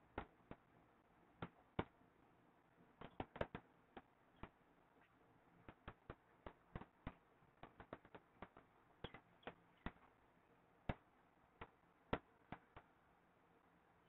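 Stylus tip tapping and clicking on a pen tablet while handwriting: a run of short, sharp clicks at an irregular pace, some in quick clusters, over a faint background hiss.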